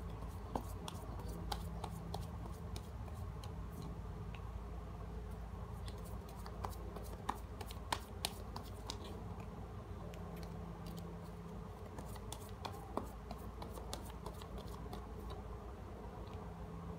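Tarot cards being drawn and laid down one by one: scattered light clicks and taps of card on card and on the table, over a steady low background hum.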